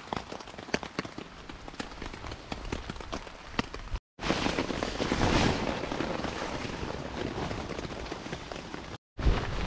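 Raindrops ticking irregularly on a tarp overhead. About four seconds in, a louder rustling as a folded fabric ground sheet is unfolded and spread out, strongest in the first two seconds and then easing.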